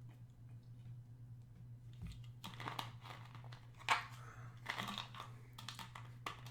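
Scattered light clicks and rustling over a steady low hum, with one sharper click about four seconds in.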